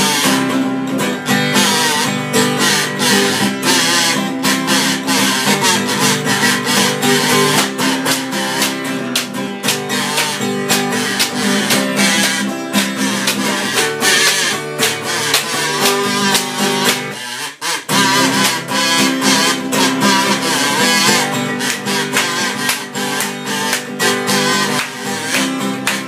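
Acoustic guitar strummed in a steady rhythm, with a brief break about two-thirds of the way through.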